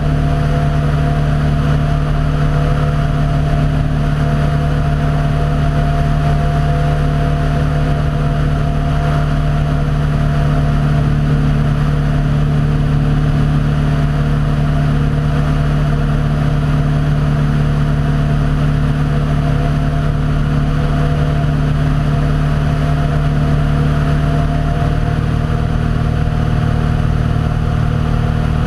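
Small aircraft's engine and propeller running steadily at cruise, a loud constant drone with a hum and a slight shift in its low tones near the end.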